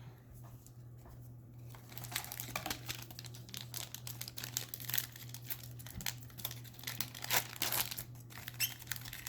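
Crinkling and tearing of a foil Metazoo booster pack wrapper being handled and opened: a fast run of small crackles that starts about two seconds in.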